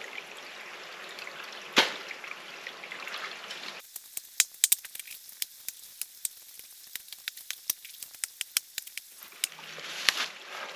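Shallow water trickling and running, with scattered sharp clicks and crackles through the middle few seconds.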